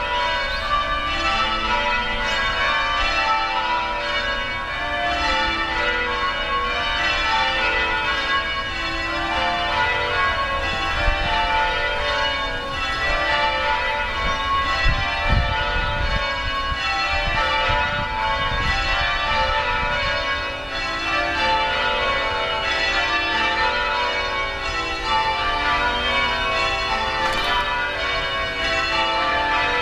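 Church bells of Washington National Cathedral ringing continuously, many bells sounding one after another, rung for a wedding about to begin.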